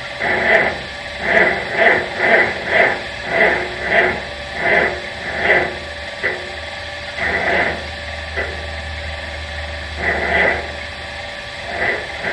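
1950 Farmall C's four-cylinder engine cranked by its starter in bitter cold, turning over slowly in a string of labored moans about two a second without catching. After about six seconds it falters to a few separate turns. A cold no-start.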